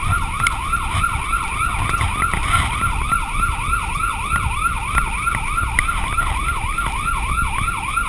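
Police car siren in fast yelp mode, its pitch sweeping up and down about three times a second, over a steady low rumble.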